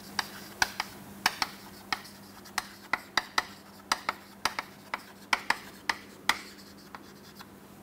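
Chalk on a chalkboard during handwriting: a run of sharp, unevenly spaced taps, about three a second, with a few short scratchy strokes between them.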